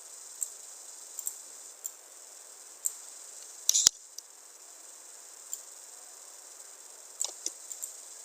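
Steady faint high-pitched hiss with scattered sharp clicks, one much louder about four seconds in, as of a computer mouse and keys being worked.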